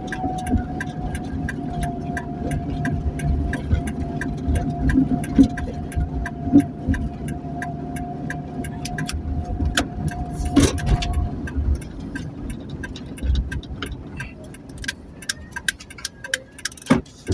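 Ambulance running on the road: a steady low engine rumble with frequent sharp clicks and rattles, and a steady whine that stops about eleven seconds in, after which it is quieter.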